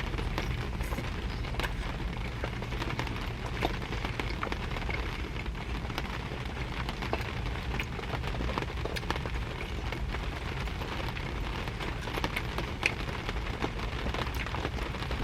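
Rain falling on a car's roof and windows, heard from inside the cabin: a steady patter dotted with many small drop ticks over a low rumble.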